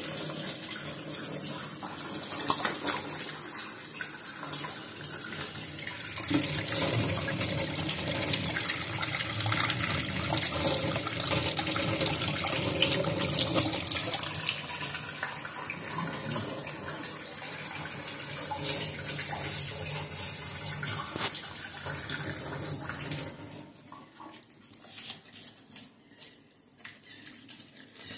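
Kitchen tap running steadily into a stainless steel sink, louder for a stretch in the middle, then shut off about five seconds before the end.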